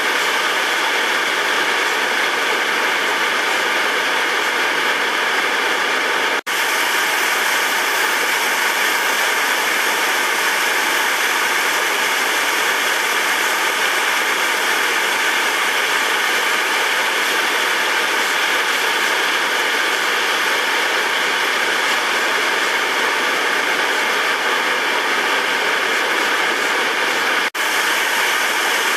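Steady rushing of whitewater pouring over a river weir and through the rapids below it, with two very short dropouts, one about six seconds in and one near the end.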